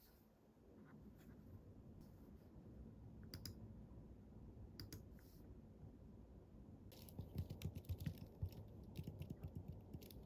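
Keyboard typing: a few scattered keystrokes, then a quick run of taps from about seven seconds in.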